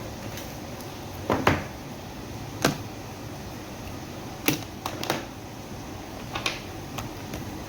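Packaging being handled during an earphone unboxing: a handful of sharp clicks and knocks, a double one about a second and a half in, over steady background noise.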